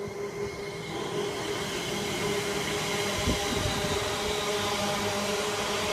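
London Midland Class 350 Desiro electric multiple unit passing through the station at speed. Its steady running and motor hum grow louder over the first couple of seconds and then hold, with a single knock about three seconds in.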